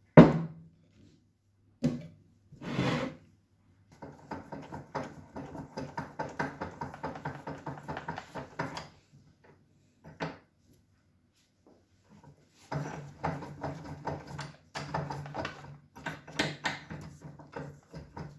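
A knock as the cast-iron weight is handled, then a steel bench vise being cranked: two runs of quick, repeated strokes as the screw is wound, first opening the jaws and then tightening them onto the weight.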